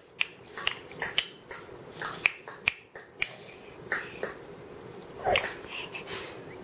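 A baby eating spaghetti by hand: a dozen or so irregular sharp clicks and smacks, with one short vocal sound about five seconds in.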